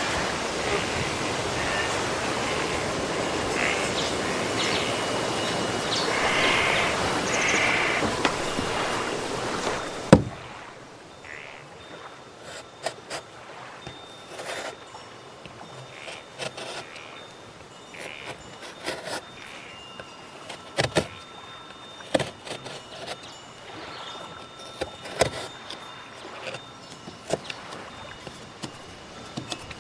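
A steady rushing noise that cuts off suddenly about ten seconds in with a sharp knock. After it, a knife carving into wooden deck boards: scattered clicks and scrapes of the blade digging into the wood.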